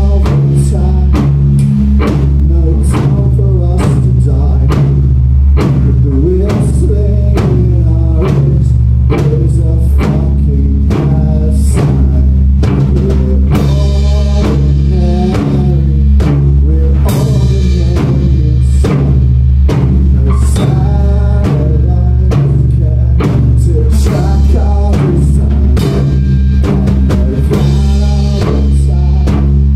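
A noise-rock band playing live and loud: electric guitar, bass guitar and a drum kit with a steady stream of hits over a heavy, continuous low end.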